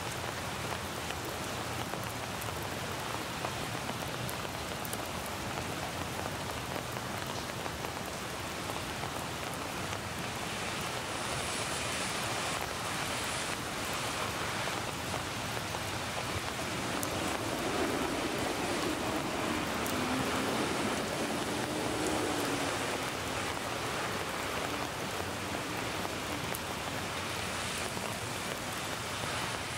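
Steady rain falling on leaves and wet pavement, an even hiss of many drops, partly a layered rain sound effect mixed with the live recording. A low hum swells and fades a little past the middle.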